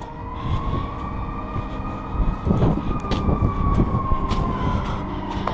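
A siren wailing in one slow rise and fall of pitch, over a low rumble with scattered knocks.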